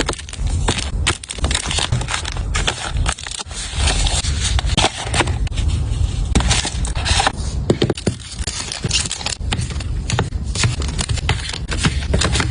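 Continuous crinkling, clicking and scraping of small items and plastic packaging being handled and set down one after another, while a small storage cart is being stocked.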